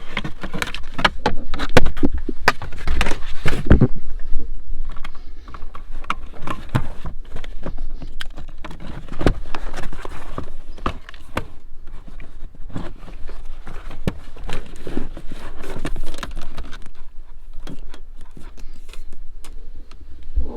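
Handling noise: a dense, irregular run of clicks, scrapes and rattles, loudest in the first four seconds.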